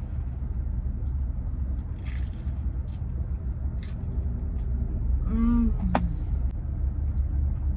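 Someone eating, with faint chewing clicks and a short hummed "mmm" about five seconds in, over a steady low rumble.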